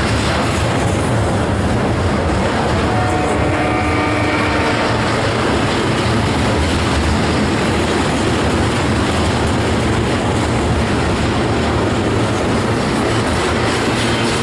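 Canadian Pacific freight train rolling past: a steady, loud rumble and rattle of wheels on rail, with a faint steady tone about three to five seconds in.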